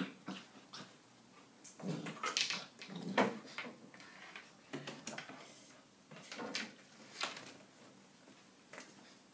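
Nine-week-old Labrador puppy playing with a toy, making short vocal sounds in separate bursts, the loudest about two to three seconds in.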